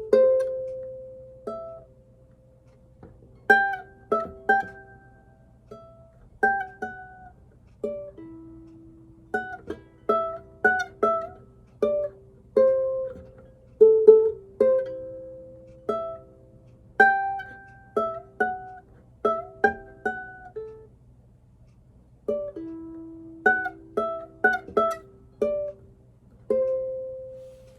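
Solo ukulele plucked by a learner: a melody in single notes and small chords, each note ringing and fading, played unevenly with short pauses between phrases.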